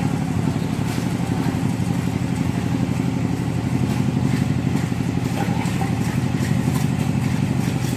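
An engine running steadily at a low, even speed with a rapid throb, and a few faint clicks over it.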